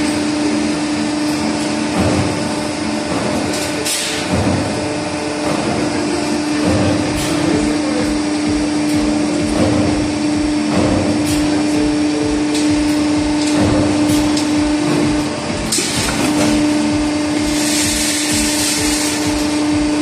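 Cable tray roll-forming line running, with a steady motor hum that stops for a moment about three-quarters of the way through. Scattered metal knocks sound throughout, and a burst of hiss comes near the end.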